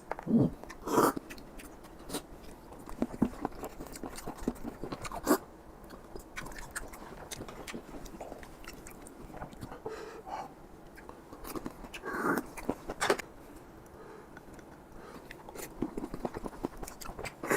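Close-miked chewing and biting of boiled apple snail meat, with scattered small clicks and a few louder bites.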